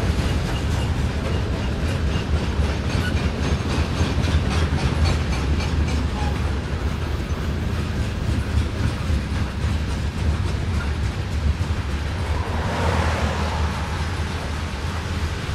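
Freight train cars rolling past at steady speed: a continuous low rumble with wheels clicking rhythmically over the rail joints, the clicks most distinct in the first several seconds. A brief swell of higher hissing noise comes near the end.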